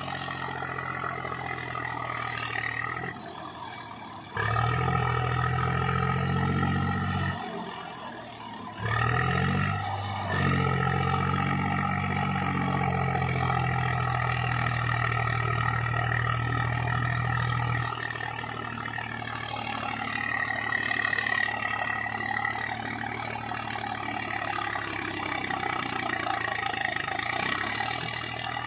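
Swaraj 834 XM tractor's 35 hp diesel engine working under heavy load, hauling a loaded trolley through mud. It revs up sharply twice, about four seconds in and again near nine seconds, holds at high revs, then eases to a lower steady run a little past halfway.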